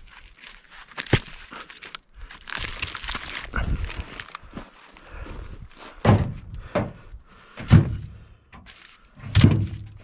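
Sawn ponderosa pine log rounds dropped one after another into a pickup truck bed, landing with a series of heavy wooden thunks against the other logs, with footsteps crunching on dry bark between them.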